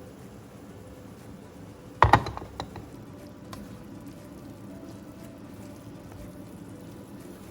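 A utensil knocking against a cooking pot: a quick cluster of sharp clatters about two seconds in, then a couple of faint taps, over a low steady hiss.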